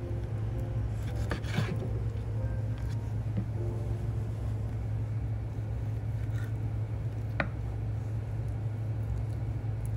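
Kitchen knife cutting through a nodoguro (blackthroat seaperch) on a wooden cutting board. There is a short scraping rasp about a second and a half in and a sharp knock of the blade on the board about seven seconds in, over a steady low hum.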